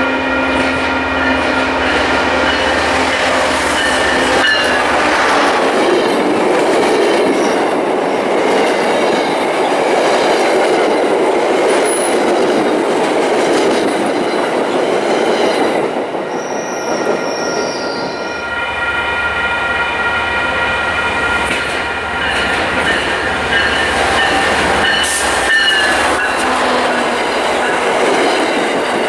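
An MBTA diesel-hauled commuter train passing at speed. The locomotive's engine and a steady horn-like tone come first for about four seconds. Then comes a long run of wheel rumble and clatter as the single-level and bi-level coaches roll by, with a wheel squeal near the end.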